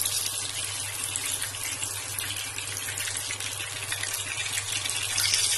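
Hot oil sizzling steadily with fine crackles around whole pomfret deep-frying in a pan.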